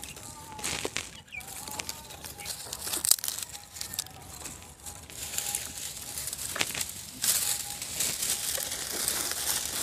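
Dry twigs and sticks rustling, crackling and snapping as they are broken by hand and packed into a clay stove, with a few sharper cracks now and then.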